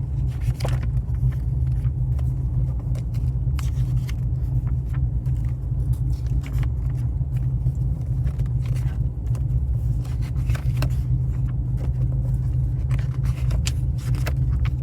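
Holden VF Commodore SSV's V8 idling steadily in a low even rumble, with a few light clicks over it.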